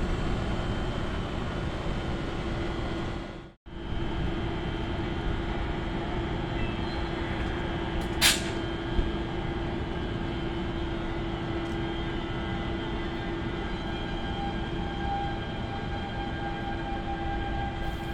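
Steady running noise of a passenger train passing through the station, with a faint steady hum. The sound cuts out briefly about three and a half seconds in, and there are a couple of short sharp clicks a little after eight seconds in.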